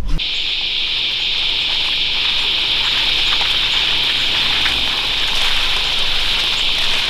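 Steady hiss of rain falling through the forest, with the Jeep Wrangler's engine running low underneath as it creeps along the track.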